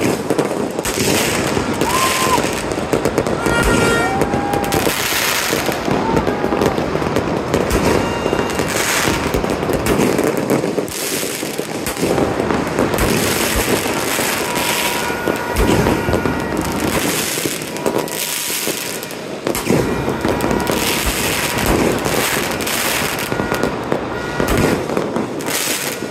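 Aerial fireworks display: shells bursting one after another in quick succession, with dense crackling between the bangs.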